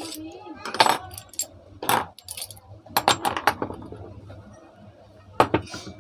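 Ceiling fan parts and tools being handled, clinking and clattering metal against metal in several separate knocks, with a small cluster of them in the middle and two more near the end.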